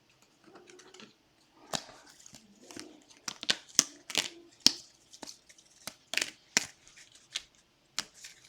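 Trading cards and their plastic sleeves and wrappers being handled and sorted on a table: a string of irregular sharp clicks and taps with light crinkling between them.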